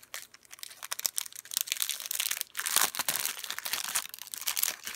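Clear plastic wrapper crinkling and tearing as it is peeled off a stack of trading cards, in a run of irregular crackles that is busiest around the middle.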